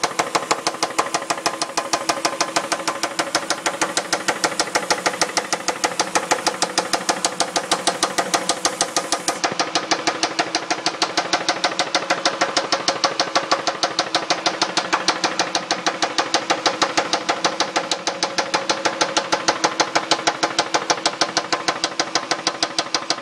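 2002 Dodge Intrepid R/T's 3.5 L V6 running with a loud, fast, even knock like rocker noise. The knock persists with new rocker shaft assemblies, so the owner next suspects worn rod bearings or low oil pressure.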